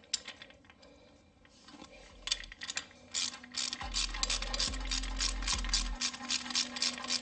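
Hand ratchet wrench clicking in quick, even strokes, about five clicks a second, starting about two seconds in and getting louder, as it runs nuts onto the fairlead's mounting bolts.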